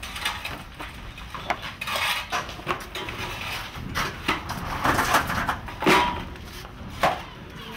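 A hammer and long-handled digging tools striking and scraping rubble and broken masonry: irregular knocks and clinks of metal on stone and loose debris, the loudest a little under six seconds in.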